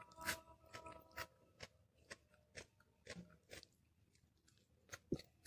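Close-up mouth and eating sounds: biting and chewing a chicken wing, a run of faint sharp clicks and small crunches.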